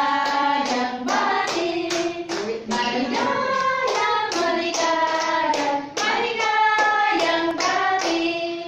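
A group of people singing a birthday song together while clapping steadily on the beat, about two to three claps a second.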